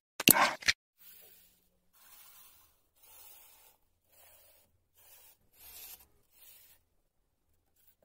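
A short whoosh sound effect, then faint rubbing and scraping of corrugated cardboard as pieces are slid and pressed into place inside a cardboard box, in about seven soft strokes roughly a second apart.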